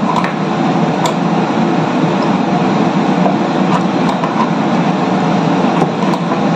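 Steady loud rumble of ship machinery, with a few faint clicks as a wrench tightens the mounting bolt of a swivel caster.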